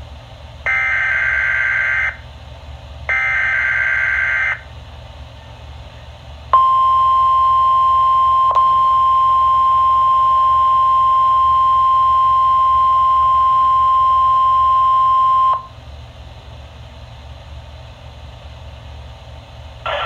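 NOAA Weather Radio Required Weekly Test coming through a Midland weather radio's speaker. The last two of the three SAME digital header bursts, each a harsh data screech of about a second and a half, come first. After a short pause the steady 1050 Hz warning alarm tone sounds for about nine seconds and cuts off into faint hiss.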